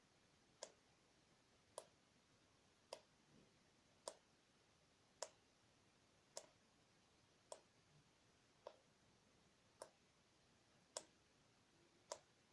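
Water dripping from a tap, single drops landing with short sharp plinks at an even pace of about one a second.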